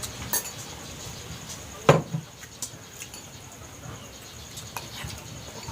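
Mealtime eating sounds: scattered small clicks and taps of utensils and chewing, with one sharp knock about two seconds in, over a steady high-pitched trill.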